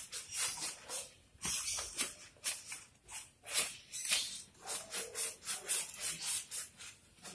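Hands scrubbing shampoo lather into a wet boxer dog's coat: a run of quick, irregular swishing strokes, a few each second.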